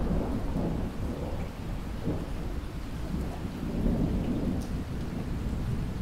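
Heavy rain pouring and splashing onto a flat, water-covered surface close by, a dense continuous patter with a low rumble underneath.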